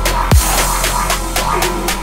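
Electronic music with a heavy sub-bass, one deep kick drum with a falling pitch, and evenly spaced hi-hat ticks.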